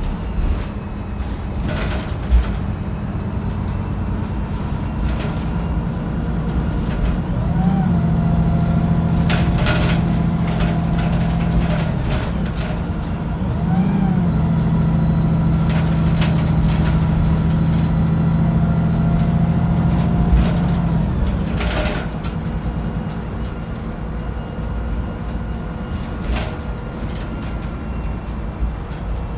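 Wright Pulsar 2 single-deck bus's diesel engine heard from inside the bus. It pulls hard twice: from about a quarter in, and again after a short dip around half-way. Each time the engine note rises briefly and then holds steady and loud, with a fainter whine that follows it, before it eases off at about two-thirds through. Scattered clicks and rattles from the bus body run throughout.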